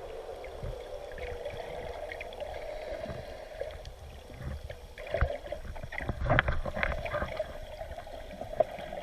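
Water sloshing and splashing around a boat over a steady hum, with a burst of louder splashes or knocks in the middle.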